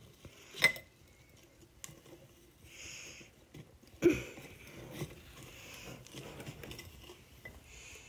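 Small hard objects being handled: a sharp clink with a brief ring about half a second in and a knock at about four seconds, with soft rustling between.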